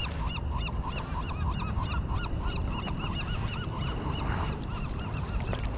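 A flock of geese honking, with many short calls overlapping and repeating several times a second, over a steady low rumble.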